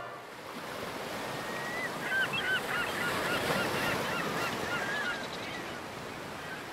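Gulls calling: many short squawks overlapping, starting about two seconds in and thinning out near the end, over a steady rush of background noise.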